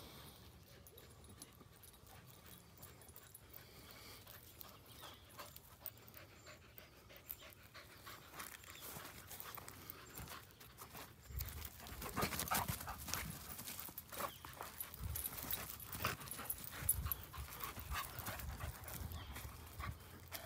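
Dogs running up close over grass, panting, with quick footfalls. Faint at first, louder from about halfway through as they reach the camera.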